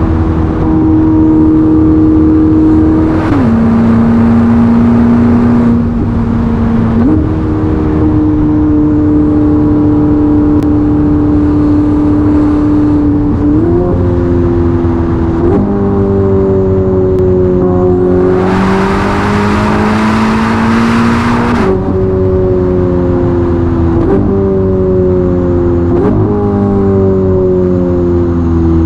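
Ferrari SF90's twin-turbo V8 with a Novitec sport exhaust, heard from inside the cabin while driving at speed. Its drone holds steady, dips in pitch and comes back, then jumps up sharply several times in the second half, each jump easing down afterwards, as with gear changes. A rush of noise rises over it for about three seconds in the middle.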